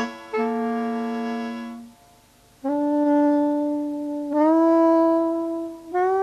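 Incidental music of slow, held notes: a sustained chord fades out about two seconds in, then after a short gap low single notes come in and step up in pitch twice, each with a slight upward scoop as it starts.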